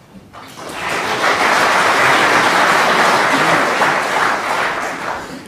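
Snooker audience applauding, building up about half a second in, holding steady, then dying away near the end.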